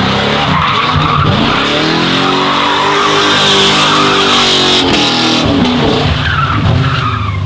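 LQ9 V8-swapped Chevrolet S10 pickup doing a burnout: the engine revs up and holds high while the rear tyres spin and squeal on the asphalt. About five seconds in the revs drop, then rise again as the truck pulls away.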